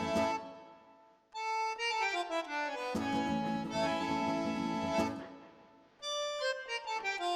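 Instrumental music: held chords over a bass, broken by quick stepwise falling runs, fading out twice and starting again.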